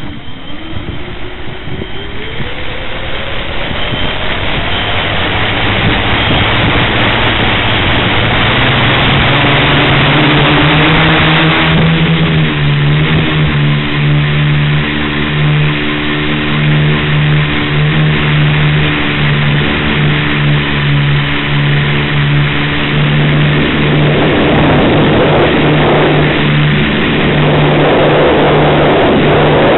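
Tricopter's motors and propellers heard close up from its onboard camera: a rising whine as they spin up on the ground, growing louder over the first several seconds. It then settles into a steady, loud buzzing drone as the craft flies.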